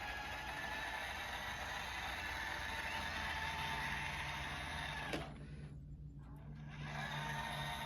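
Roomba i5+ robot vacuum running on carpet with a steady whine. About five seconds in there is a click and the whine cuts out for under two seconds, leaving a low hum, then picks up again.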